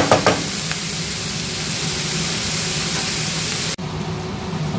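Beef liver and sliced onions sizzling in oil in a frying pan, with a few clicks of the spatula against the pan at the start and a steady low hum underneath. Almost four seconds in the sound cuts to a duller, quieter bubbling as the liver simmers in the water it has released.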